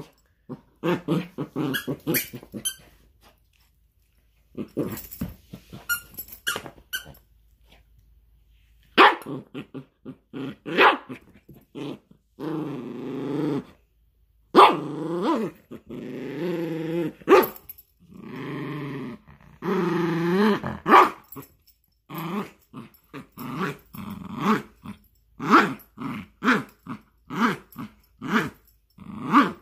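Yorkshire terrier growling as it tugs on a rope toy. First come short growls with a couple of pauses, then long wavering growls in the middle, then quick short growls and snarls towards the end.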